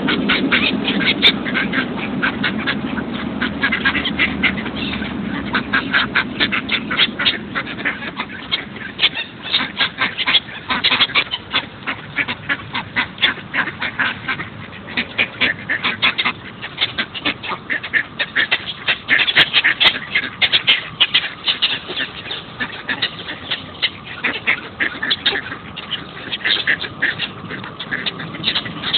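A flock of mallard ducks quacking, many short calls overlapping several times a second, as they crowd in for bread.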